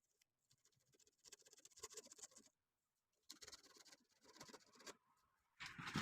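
Near silence with faint scattered small clicks and rustling, and a louder noisy sound starting near the end.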